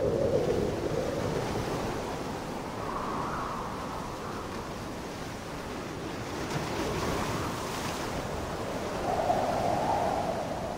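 Ocean surf washing in waves, with a wind-like rush, swelling louder near the start and again a little after nine seconds.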